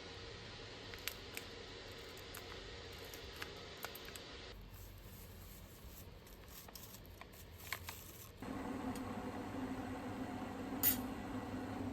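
Light clicks and taps of kitchen handling, then a steady low hum starts about eight seconds in, with one sharp click near the end.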